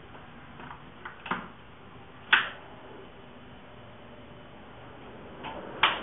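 A few sharp, irregular clicks, the loudest about two seconds in and another near the end, over the low steady hum of a ceiling fan running.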